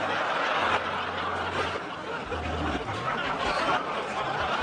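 Studio audience laughing, a dense, steady wash of laughter.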